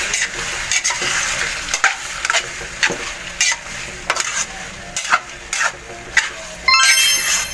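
Diced chicken and hot dog pieces sizzling in an aluminium frying pan while a metal spatula stirs them, scraping and clicking against the pan. A short chime sounds near the end.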